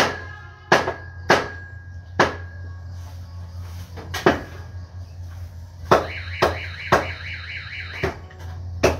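Meat cleavers chopping roast pork on a table, about a dozen sharp, irregular chops roughly a second apart. A warbling high tone joins briefly about six seconds in, over a low steady hum.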